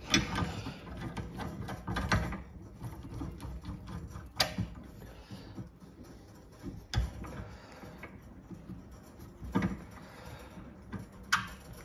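Metal clicking and clinking from a brake-line double-flaring tool being handled and clamped in a bench vise. Scraping and rustling come first, then four sharp clicks spaced out over the rest.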